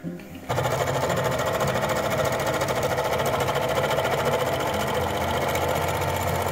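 Serger (overlock sewing machine) starting up about half a second in and running steadily at speed, stitching and trimming the seam along a leg of cotton denim jeans.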